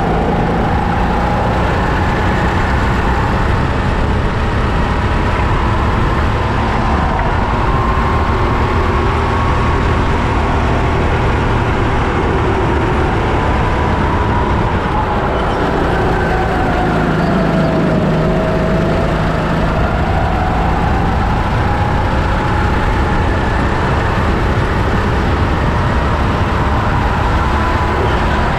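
Racing kart engine at speed, as heard from the seat, rising and falling in pitch with the throttle through the corners and dipping lowest a little past halfway before climbing again. A dense rumble of road and wind noise lies underneath.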